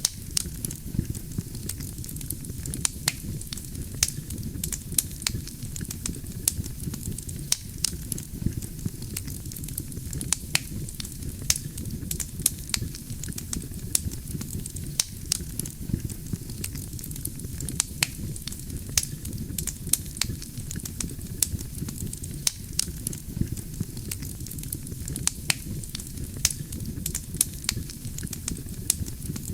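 Wood campfire burning: a steady low rumble of flames with frequent irregular sharp crackles and pops from the burning logs, a few each second.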